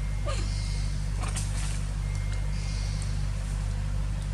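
A steady low mechanical hum, like a motor running at a distance, with a couple of faint rustles or clicks over it.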